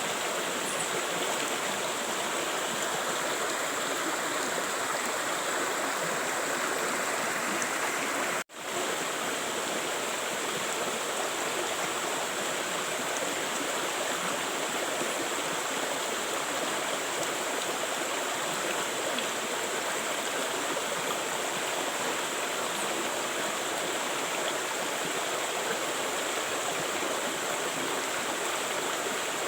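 River water flowing steadily over rocks, an even rushing. The sound drops out for a split second about eight seconds in, then resumes unchanged.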